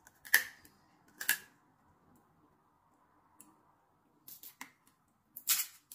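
Steamed blue crab shells being cracked and snapped apart by hand: about five sharp cracks, two close together near the start and three more near the end.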